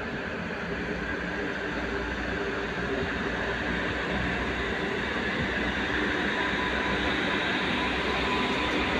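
Freight train of flat wagons rolling steadily past at close range: a continuous noise of wheels running on the rails, growing slowly louder.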